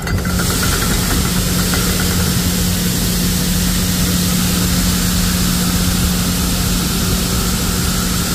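Shelled corn pouring out of a hopper-bottom grain trailer's opened gate through the dump-pit grate: a steady rushing hiss that sets in just after the start. Beneath it runs a steady low engine hum.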